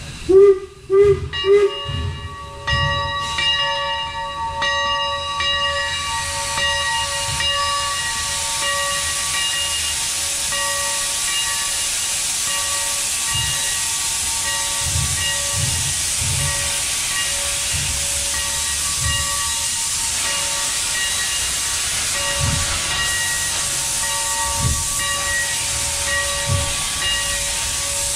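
Pennsylvania Railroad #331 steam locomotive: three short, loud whistle blasts, then a steady hiss of steam with a thin whistling tone and occasional low thumps.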